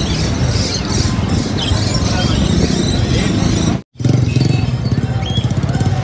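Busy bird-market ambience with short chirps from small caged birds, under background music. The sound cuts out completely for a moment about four seconds in.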